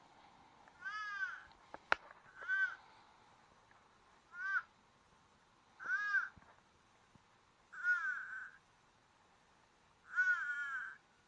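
Harsh crow-like caws, six in a row, one every one and a half to two seconds, with a sharp click about two seconds in.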